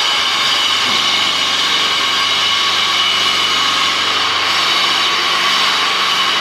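Wire and cable making machinery running steadily: a continuous loud hiss with several steady high whining tones.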